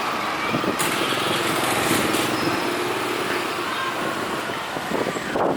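Busy market-street noise with a small engine running and people's voices, which grow clearer near the end.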